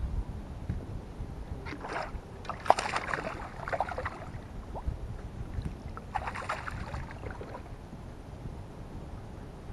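A hooked bass splashing at the surface beside the boat as it is fought in, in two bouts, about 2 seconds in and again about 6 seconds in. Wind rumbles on the microphone throughout.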